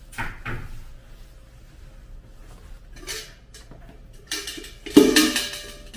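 Stainless steel ice bucket handled on a kitchen counter: a few light knocks and scrapes, then a loud metallic clank with a brief ring about five seconds in as it is set down.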